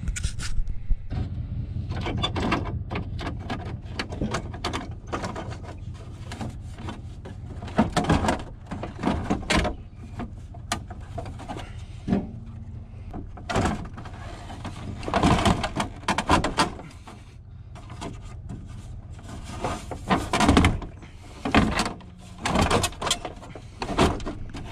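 Irregular knocks, clicks and plastic rattles of a truck's interior door panel being pried loose around the door handle and pulled off, over a steady low hum.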